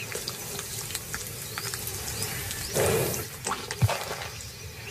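Wet, slimy squelching as a Nile crocodile lays an egg into her nest chamber, loudest about three seconds in, followed by a few soft clicks.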